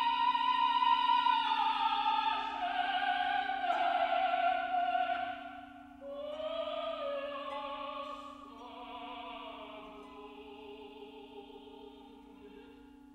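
Background music: a high operatic singing voice holding long notes over classical accompaniment, growing quieter in the second half.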